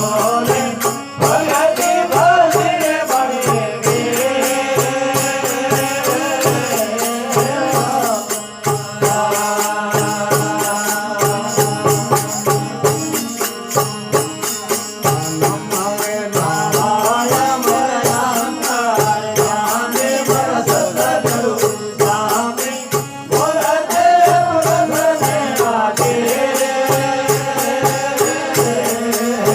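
Rajasthani desi bhajan music: a melodic line over a steady, fast rhythmic beat.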